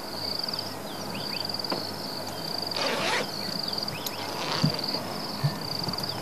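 An insect trilling in repeated bursts of about a second each, with faint short bird chirps and a brief hiss of noise about three seconds in.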